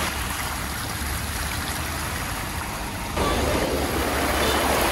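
Floodwater rushing and spraying off the wheels of an electric scooter as it wades through a deeply flooded street, a steady churning wash that grows louder about three seconds in.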